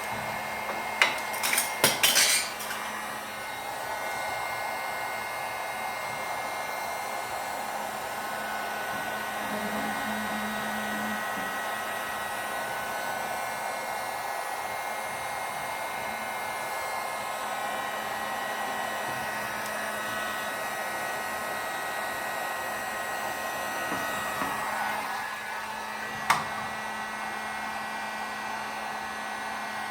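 Heat gun blowing steadily with a steady whine while it shrinks a BOA heat-shrink clamp onto a hose. A quick cluster of sharp metallic clinks comes about a second in, and a single clink near the end.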